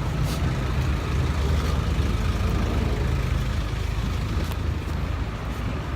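Low rumble of a motor vehicle passing close by, swelling about two seconds in and then slowly easing off.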